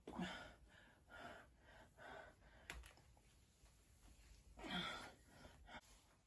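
A person's faint breathy sighs and gasps, four or five short ones, the loudest about five seconds in.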